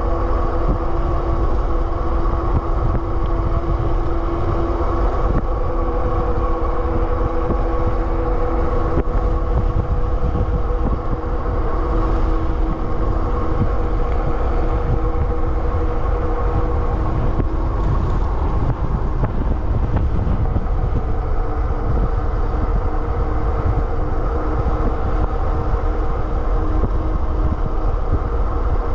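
Super73 RX electric bike riding at speed: heavy wind rumble on the microphone, with a steady whine from the motor and fat tyres.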